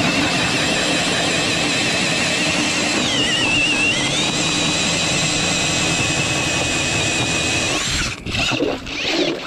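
Cordless drill spinning an ice auger as it bores through lake ice: a steady motor whine that sags in pitch for about a second, three seconds in, as the blades bite harder. It cuts off about eight seconds in, followed by a few knocks and clatter.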